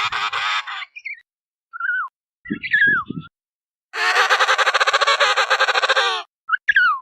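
Penguins calling: short calls that fall in pitch, and about four seconds in a long, harsh call of rapid even pulses lasting about two seconds.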